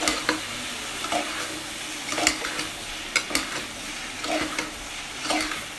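Chopped vegetables sizzling in oil in a pressure cooker while a slotted steel spoon stirs them, scraping and clinking against the pot several times.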